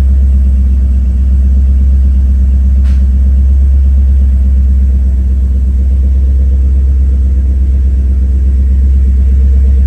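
1973 Ford F-250's engine idling steadily, heard from inside the cab as a loud, even low rumble.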